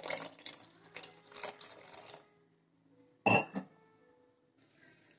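Water poured from a steel cup into a metal kadai of thick masala gravy to thin it, splashing for about two seconds. About a second later comes a single short metallic clank.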